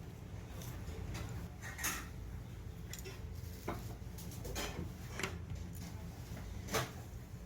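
Dishes and eating utensils clinking, about five sharp knocks at irregular intervals, over a steady low hum.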